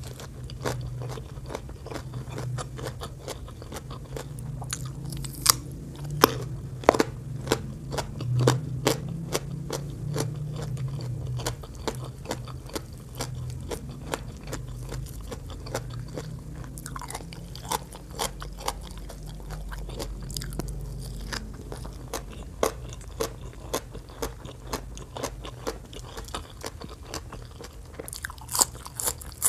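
Close-miked chewing of crunchy green papaya salad: a steady run of wet crunches and mouth clicks. Near the end come sharper, louder crisp bites into a raw green vegetable.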